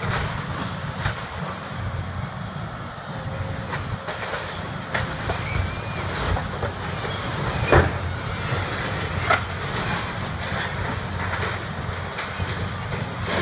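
Caterpillar excavator's diesel engine running steadily while its bucket tears into a Quonset hut's corrugated metal roof, with scattered crunches and clanks of sheet metal, the loudest crash about eight seconds in.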